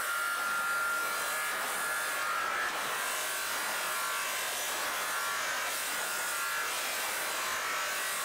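Electric abrasive power tool grinding or polishing steel: a steady hissing grind with a faint whine, running at an even level.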